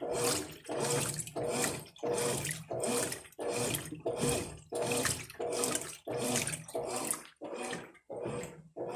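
Brastemp Ative 11 kg washing machine agitating a load of towels at medium water level: water sloshing in even, repeated surges, about one and a half to two a second.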